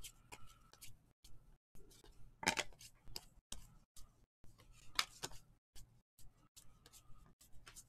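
Trading cards being flipped through by hand: a string of quick, light papery flicks and clicks, with two louder ones about two and a half and five seconds in.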